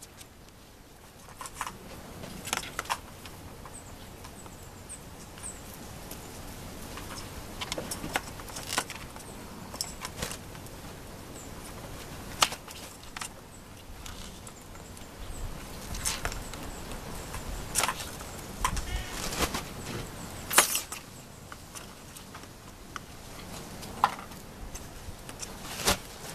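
Kittens batting a ball around a hard plastic circular track toy: irregular sharp clicks and knocks of the ball and paws against the plastic.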